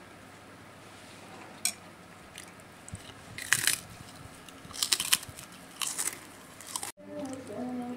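Crisp fried cracker being bitten and chewed close to the microphone: a handful of sharp crunches, the loudest in the middle.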